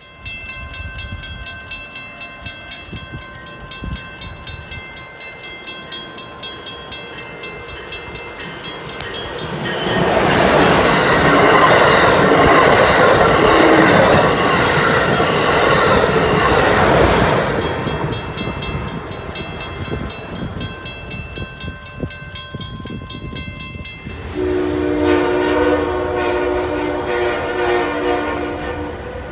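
Amtrak Acela Express trainset passing at speed, a loud rush of wheels and air that swells and fades over about seven seconds near the middle. Before and after it a grade-crossing bell rings steadily, about two strokes a second. Near the end a train horn sounds a chord of several notes for a few seconds.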